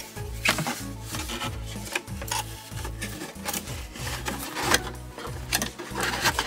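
Stiff white cardboard of an IKEA TJENA flat-pack storage box being folded and pushed into shape by hand: rubbing and scraping with several sharp crackles, over background music.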